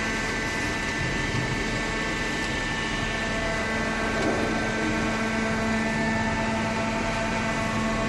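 Hydraulic waste paper baler running: a steady machine hum with a constant drone, without pauses or changes.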